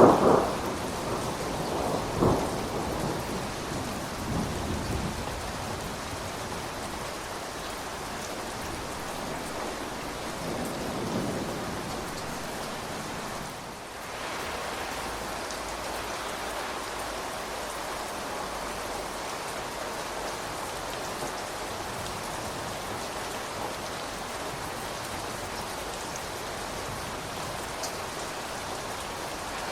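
Steady rain falls throughout. A roll of thunder dies away over the first few seconds, with a sharper crack about two seconds in and a fainter rumble around the middle.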